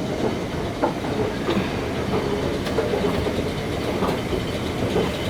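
Escalator running, a steady mechanical noise from its moving steps.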